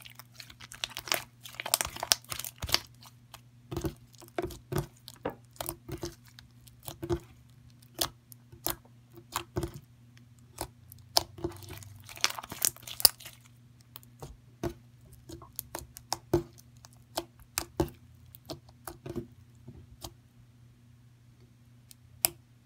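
Slime being squished and stretched by hand, making irregular sticky clicks and pops, with denser crackling runs about two seconds in and again around twelve seconds. A steady low hum sits underneath.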